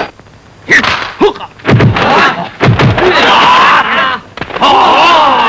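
Two sharp punch-like impacts, film fight sound effects, about a second in, then a crowd of men shouting and cheering together.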